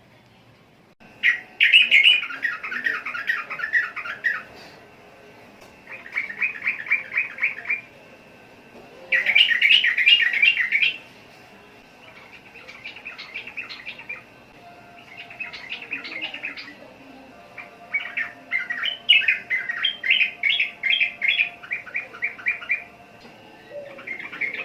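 Yellow-vented bulbul singing: a string of rapid, chattering phrases of quick notes, each a few seconds long, with short pauses between them.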